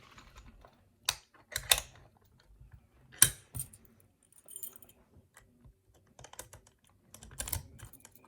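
Key rattling and clicking in an Ebony 50mm solid brass padlock as the lock is worked with its key: a string of sharp metallic clicks, the loudest about three seconds in.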